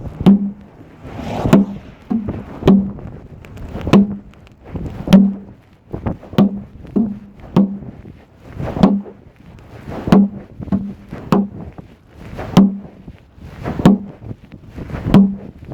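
A regular series of sharp knocks, one a little more than a second apart, each with a brief low tone.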